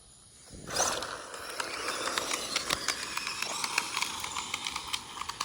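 Electric 1/16-scale Traxxas Slash RC truck driving over dirt, starting about a second in: a steady rattling clatter of wheels and chassis over loose ground with many small clicks, over a faint steady motor whine.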